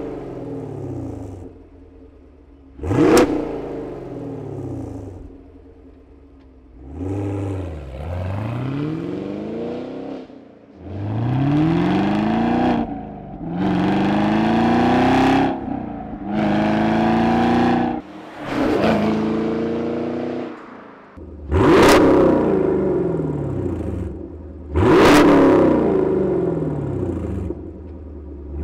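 Chevrolet Camaro SS 6.2-litre V8 heard through its exhaust: two sharp throttle blips, then the car accelerating through several gears, each pull rising in pitch and dropping at the shift. Near the end come two more sharp revs, which now go through the MBRP Installer Series straight-through axle-back exhaust rather than the factory exhaust.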